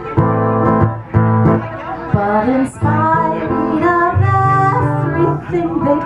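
Acoustic guitar strummed in a steady rhythm with a woman singing a folk song, played live through a small PA.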